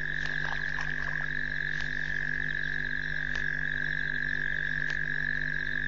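Frog chorus: a steady high-pitched call with a faster pulsing trill above it, a sharp click repeating about every second and a half, and a few short lower croaks in the first second or so, over a steady low hum.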